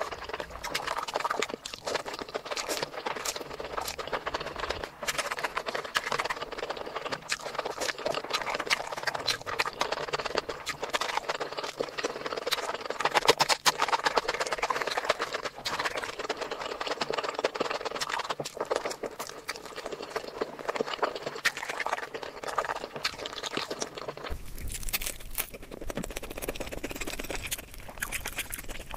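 Close-miked eating sounds: dense wet chewing and mouth smacking, one small click after another. The sound changes abruptly near the end.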